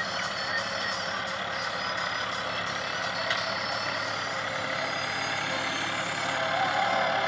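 Tractor engine running steadily under load while ploughing a field.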